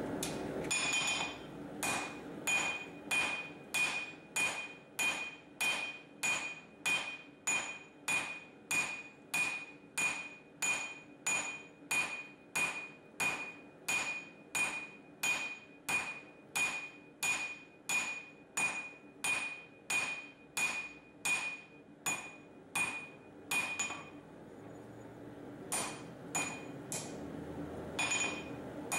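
Hand hammer striking a red-hot mild steel bar on an anvil, drawing out and thinning the tab. Steady blows come about two a second, each with a bright metallic ring. The blows pause about 24 seconds in, then a few more follow near the end.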